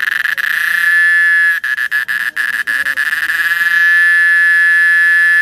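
A male cicada singing, calling to attract females: a loud, shrill buzz held at one high pitch, made by the vibrating tymbal membranes on its abdomen. It breaks off briefly a few times in the first half, then holds steady.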